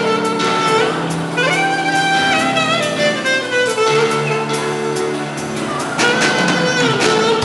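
Instrumental music played live: a lead melody with sliding, held notes over sustained lower chords.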